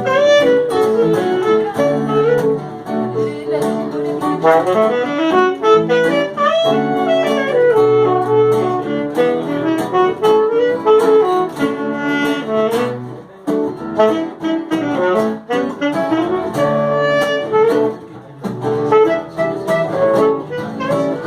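Instrumental break in a jazz-flavoured song: a saxophone plays a flowing solo melody over sustained band accompaniment.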